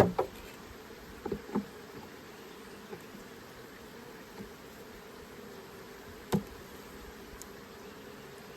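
Honeybees buzzing in a steady hum around an opened hive, broken by a few short knocks: a cluster right at the start, two more about a second and a half in, and one single knock a little after six seconds.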